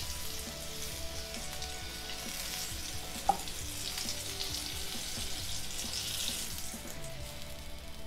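Chicken seekh kebabs sizzling in shallow frying oil in a pan as they are lifted out with wooden spatulas, a steady hiss, with a single light knock about three seconds in.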